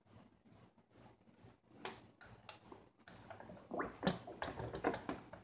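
Stick blender running in soap batter, heard only in short choppy bursts as the sound keeps dropping out between them; a few knocks in the second half.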